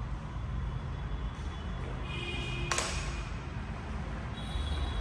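Low, steady rumble of road traffic, with one sharp click nearly three seconds in.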